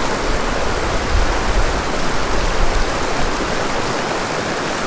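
Small, fast mountain creek rushing and splashing over a rocky bed: a steady, loud rush of water.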